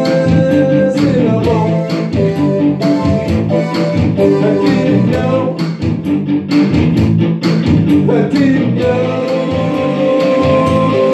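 Two electric guitars played together live, with sustained held notes and a few notes that glide in pitch.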